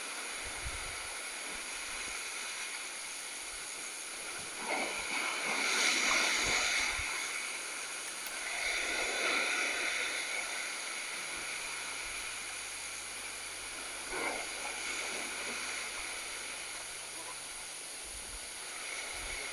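Sea surf washing against the rocks, with louder surges of breaking waves about five and nine seconds in.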